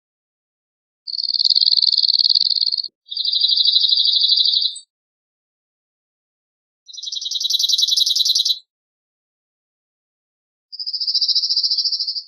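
Cirl bunting singing: four rapid trills of quickly repeated notes on one steady high pitch, each lasting about one and a half to two seconds, the first two almost back to back.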